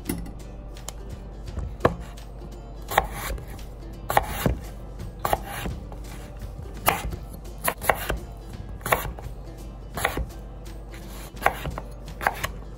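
Santoku knife chopping raw potatoes, each cut ending in a sharp knock on the cutting board. The cuts come irregularly, about one a second.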